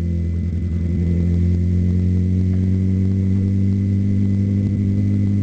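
Suzuki GSX-R 750 motorcycle's inline-four engine running at a steady pitch while riding, heard from the rider's position.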